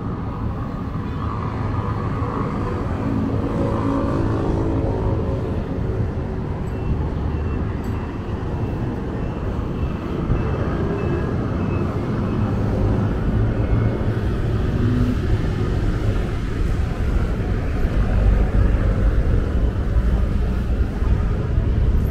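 Road traffic on a busy city street: cars running past in a steady low rumble.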